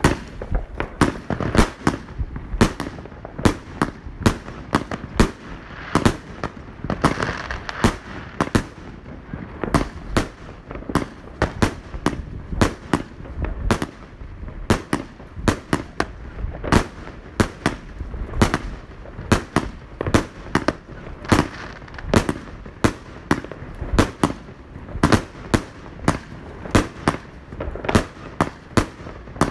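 Consumer fireworks battery (cake) firing shot after shot, a rapid run of sharp bangs and pops, one to two a second, as its shells burst overhead.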